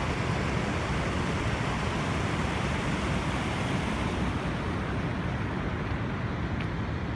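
Steady rushing of a river in flood spilling over its bank, a constant hiss-and-roar of fast water. The hiss softens a little about four seconds in.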